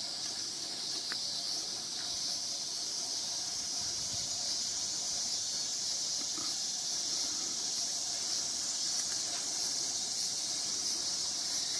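A steady, high-pitched chorus of insects buzzing in the garden.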